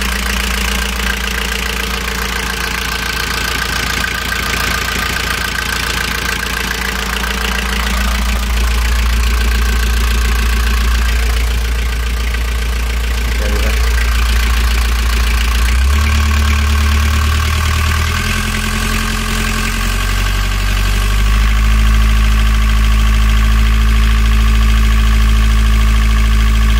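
Vetus M4.14 marine diesel engine running, driving the newly fitted 150 amp Bosch alternator under load while it charges a lithium battery bank at about 98 A. The engine speed steps up about two-thirds of the way through and again shortly after.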